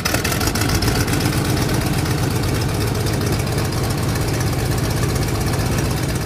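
Tractor engine running steadily, a fast, even chugging beat.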